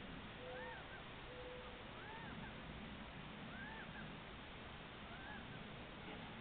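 Faint animal calls over steady background hiss: a short rising-and-falling call repeated about every second and a half, with a few short steady lower notes in the first couple of seconds.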